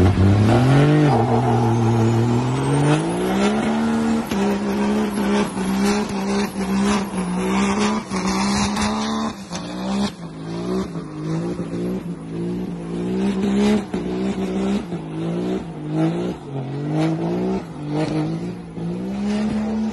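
Pickup truck doing a burnout: the engine revs up over the first few seconds, then is held high with its pitch dipping and climbing back about once a second while the rear tyres spin.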